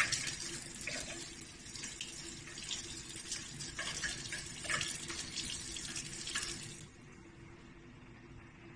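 Water running from a chrome basin faucet into a ceramic sink, uneven in level, stopping about seven seconds in. The tap is opened to the hot side while the vanity's built-in water heater tank is being filled.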